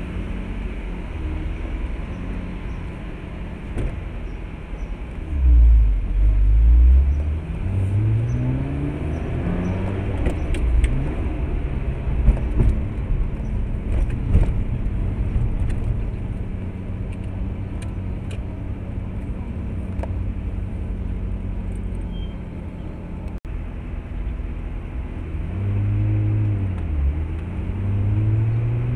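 Highway traffic: car engines and tyres running continuously, with slow sweeping changes in pitch. A louder low rumble swells about six seconds in and again near the end.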